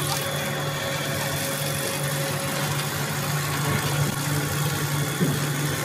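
Puffed-snack food extruder running: a steady mechanical hum with a low drone and a faint high whine over a busy machine hiss. A single short knock comes about five seconds in.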